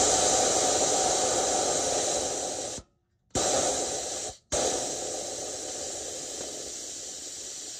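Compressed air blowing off through the pulled relief valve of a train horn air tank: a loud, steady hiss that slowly weakens as the tank pressure drops. It cuts out abruptly twice, briefly, about three seconds and four and a half seconds in.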